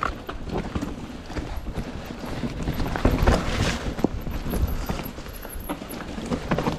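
Mountain bike clattering over a technical stretch of trail: irregular knocks and rattles from the tyres, chain and frame, louder and busier about three seconds in.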